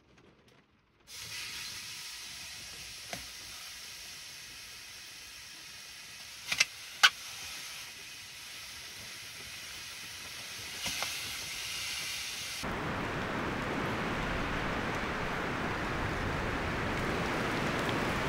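Whole bok choy sizzling and hissing on a hot wood-stove top, with a few sharp clicks, the loudest about seven seconds in. Near the end it gives way to steady rain.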